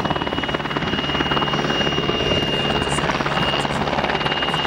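PZL W-3A Sokol twin-turbine helicopter hovering: a fast, even rotor chop with a thin, steady high turbine whine over it.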